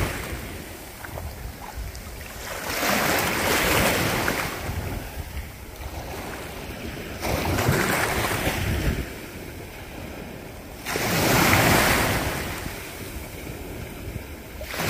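Shallow surf washing in around the angler's waders, one wave every four seconds or so, each wash swelling and fading away, over a steady low rumble of wind on the microphone.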